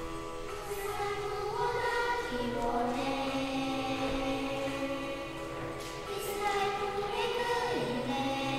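Two young girls singing a worship song together, with accompaniment underneath; the sung notes are held and step up and down in pitch.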